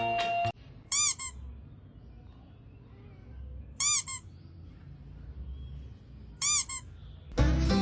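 Three short, high-pitched cries from a young pet, each rising and then falling in pitch, spaced about three seconds apart.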